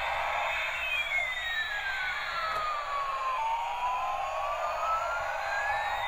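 Battery-operated toy airliner playing its electronic sound effect through a small speaker: a whistling tone that falls slowly for about two and a half seconds, then rises again, over a steady hiss.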